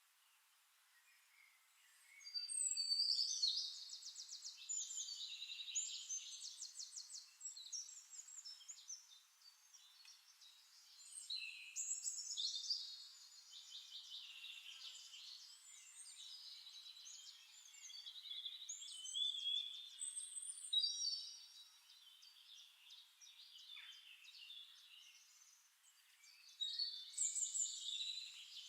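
Songbirds singing: long phrases of fast, high trills, coming in four bouts with short pauses between them.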